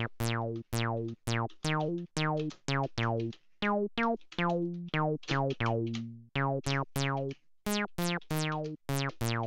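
Behringer Model D analog monosynth playing a run of short, plucky sawtooth notes at shifting pitches, about two to three a second, in an acid-style sequence. Each note opens bright and closes down fast under a short, resonant filter envelope sweep, while the filter resonance is turned up.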